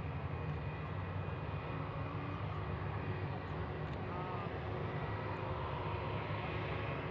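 Airbus A320-232's IAE V2500 turbofans running at idle thrust as the airliner taxis, heard across the airfield as a steady low rumble with a faint whine.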